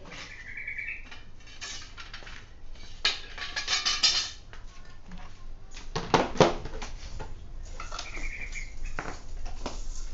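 Loose steel bicycle spokes clinking and rattling against each other as they are handled, with scattered metal taps and a few louder knocks about six seconds in. A short high chirp is heard near the start and again about eight seconds in.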